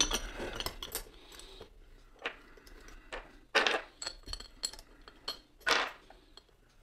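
Small steel bolts and nuts clinking as they are picked up, handled and set down against metal: a run of separate sharp clicks, roughly one every half second to second.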